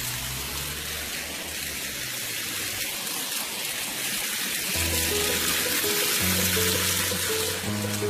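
Water falling steadily down a cement artificial-rock waterfall into a pool, heard as an even rushing splash. Instrumental background music plays over it and drops out for a couple of seconds in the middle.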